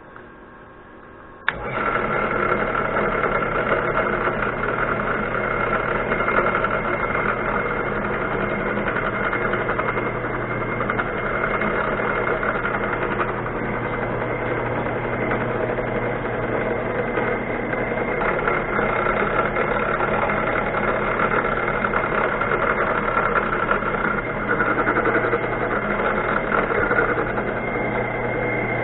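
A shop machine's electric motor switched on with a click and running steadily, with a constant hum and a steady whine.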